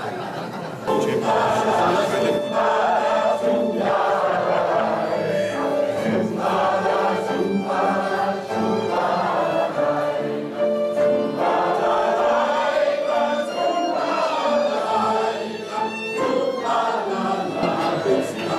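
A crowd of people singing a song together, many voices at once, starting about a second in after a short spoken moment.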